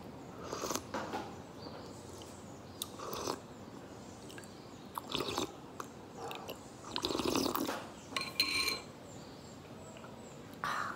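A person taking a small tablet and swallowing it: scattered short handling clicks and rustles with mouth and swallowing sounds, the longest stretch about seven seconds in.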